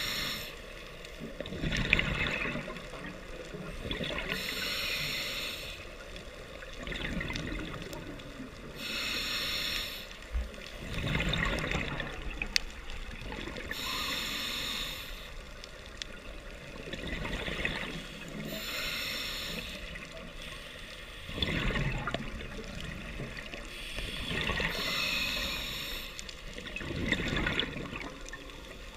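Scuba diver breathing through a regulator, in a steady cycle of about one breath every five seconds. Each breath is a hissing inhale followed by a burst of bubbling exhaust bubbles.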